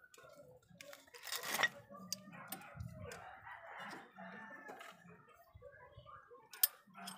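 Metal hand tool clicking and clinking against a disc brake caliper during a brake pad change, with a short scrape about a second in and scattered sharp clicks after.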